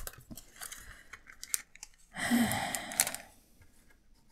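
Sticker strip being peeled off its backing sheet: a few light handling clicks, then a rasping rip lasting about a second.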